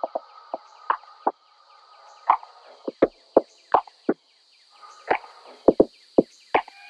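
Hand-cranked plastic circular knitting machine being turned, its needles clicking as they pass around the ring: an uneven run of sharp clicks.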